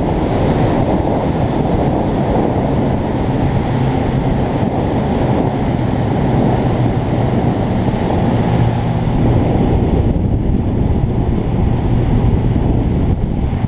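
Heavy wind rush on the microphone of a camera mounted on a moving motorcycle, over the steady drone of the motorcycle's engine at cruising speed.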